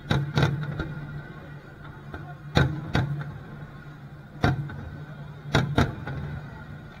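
Aerial firework shells bursting: about eight sharp booms at uneven intervals, the loudest about two and a half and four and a half seconds in, over a steady low hum.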